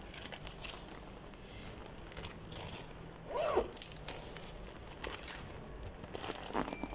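Faint rustling and crinkling of pillowcases being pulled out of their packaging, with scattered small clicks. A short murmur of voice comes about halfway through.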